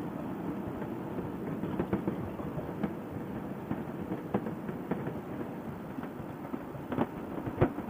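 Riding noise from a moving motorcycle, picked up through a helmet intercom microphone: a steady rush of wind and road noise with the engine underneath. Two short knocks near the end.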